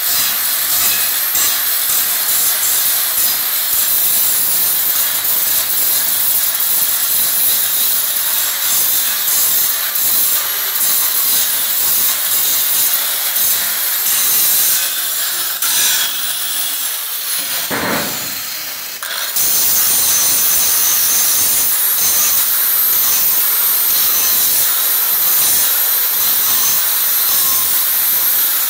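Angle grinder deburring drilled square steel tubing: the spinning disc grinds against the steel with a harsh, steady hiss. About two-thirds of the way through it eases off briefly, then bites in again at full level.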